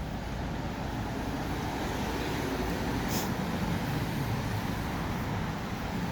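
City street traffic: a steady rumble of passing cars and engines, slowly building, with a brief high hiss about three seconds in.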